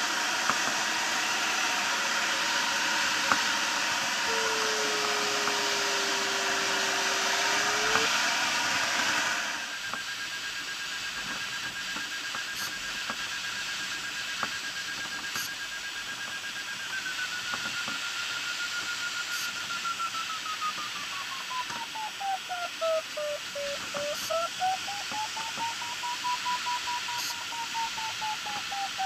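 Glider cockpit: air rushing past the canopy for the first nine seconds or so, with a low electronic tone gliding in pitch, then quieter airflow and the variometer's audio beeping, its pitch steady and high, then dropping and rising again as the rate of climb or sink changes.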